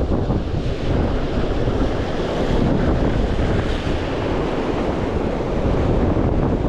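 Wind buffeting the microphone over the steady wash of ocean surf against the jetty rocks.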